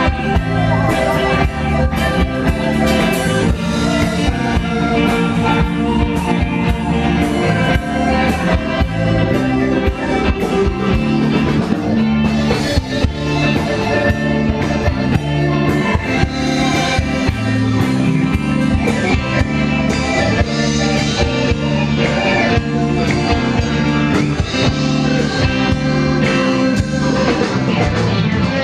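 Rock music with electric guitar and singing, a steady beat all through.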